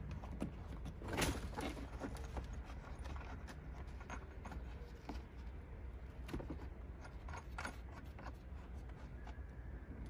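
Faint handling sounds: scattered small metal clicks and rubbing as a brass air-line fitting is worked by hand through felt floor insulation, with a louder clatter about a second in, over a low steady hum.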